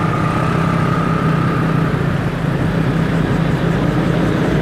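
Motor scooter's engine running steadily while riding, with road and wind noise and the hum of surrounding traffic.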